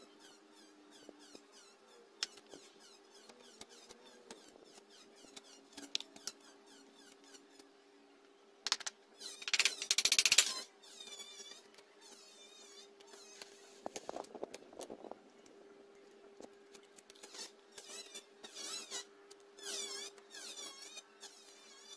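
Knife working a bamboo strip by hand: light scrapes and taps, then about nine seconds in a loud rapid run of knife strikes lasting over a second, and a shorter burst of duller knocks a few seconds later. Repeated high-pitched chirps come and go in the background over a faint steady hum.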